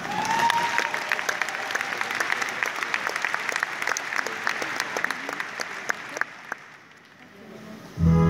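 Audience applauding in a large hall, the clapping dying away after about six seconds. The orchestra starts playing near the end.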